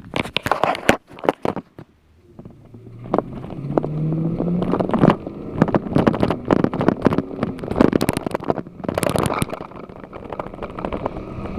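Gusting wind buffeting the microphone in irregular blasts, with a motor vehicle's engine running underneath, its note rising about three to five seconds in.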